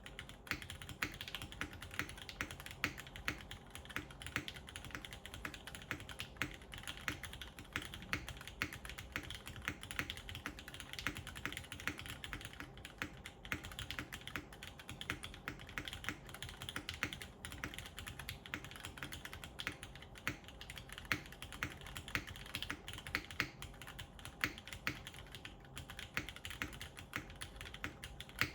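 Steady, fast typing on a mechanical keyboard with linear Cherry MX Black switches in a full aluminium plate, under GMK doubleshot keycaps: a dense run of sharp keystroke clacks with no tactile click.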